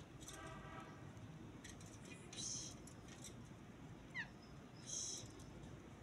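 Quiet garden ambience with a short voiced call near the start, probably the ginger cat's meow. Later come two brief hissy chirps and one quick falling chirp a little after four seconds.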